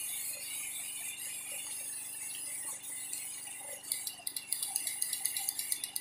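Four-pin horn relay clicking as the horn button is pressed, a fast run of small sharp ticks starting about four seconds in; the horn itself is not sounding.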